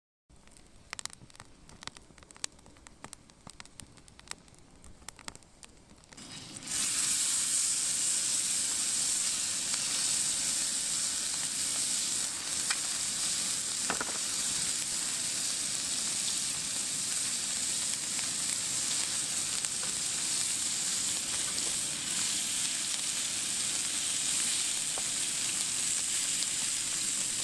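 Food sizzling in a hot pan. A few light clicks and knocks come first, then the sizzle starts suddenly about a quarter of the way in and stays loud and steady.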